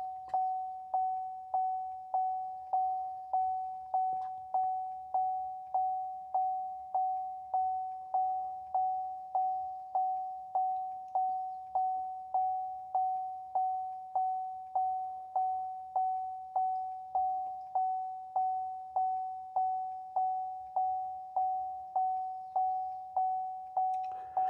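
Truck cab warning chime: a single high ding repeating steadily, a bit more than once a second, each one fading quickly.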